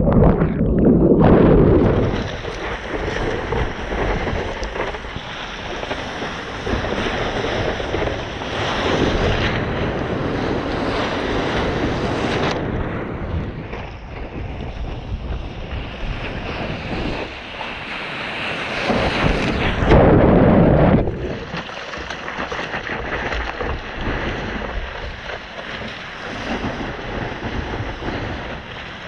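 Ocean surf washing and breaking, with wind buffeting the microphone. Two louder rushes stand out, one at the start and one about twenty seconds in.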